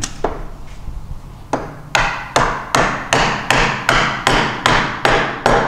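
Wooden carpenter's mallet knocking a timber rail's tenon into the mortise of a stool leg to seat the joint. A couple of single blows, then a steady run of about three blows a second from about two seconds in.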